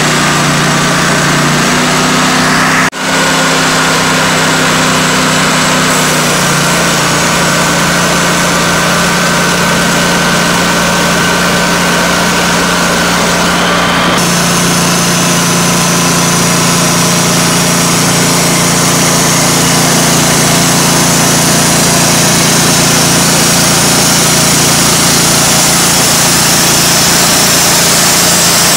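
TimberKing 1600 portable bandsaw mill running loud and steady, with a brief drop in the sound about three seconds in.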